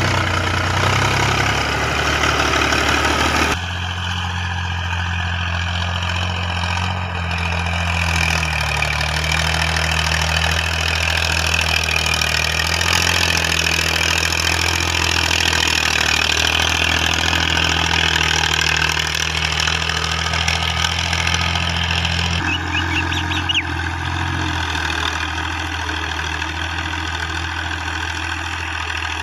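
Fiat 480 tractor's diesel engine running steadily under load while pulling a cultivator through the soil. It is loudest as the tractor passes close in the first few seconds, then quieter and even as it works farther off.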